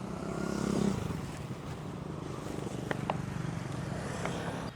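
Small motorbike engine running nearby, swelling over the first second and then holding steady.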